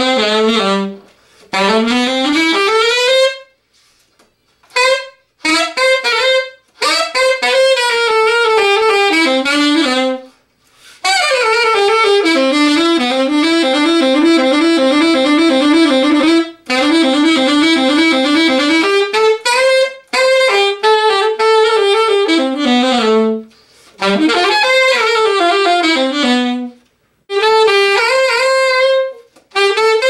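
Solo alto saxophone playing unaccompanied jazz lines: quick runs of notes in phrases broken by short breaths. A passage in the middle rapidly alternates between two notes.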